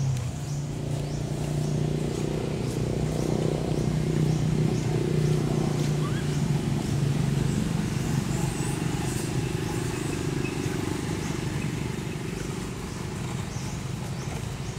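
A steady low engine drone that swells slightly and then eases, with short high chirps repeating every half second or so above it.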